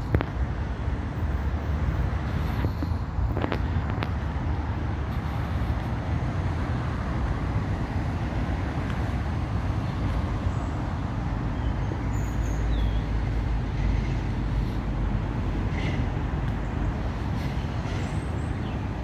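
Steady low rumble of road traffic, with no clear single vehicle passing.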